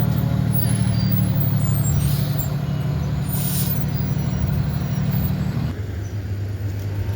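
Fire truck's engine running steadily with a low rumble, with a couple of short hisses partway through; near the end the engine note drops lower.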